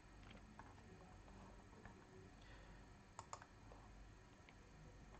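Faint computer mouse clicks over near-silent room tone, the clearest a quick pair of clicks a little past three seconds in.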